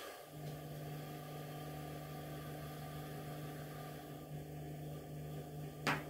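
Brushed washing machine motor running slowly under a TDA1085C speed controller board, a low steady hum. A single short click comes near the end.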